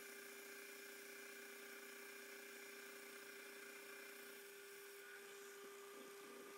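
Metal lathe running: a faint, steady hum with a thin whine from the motor and spindle.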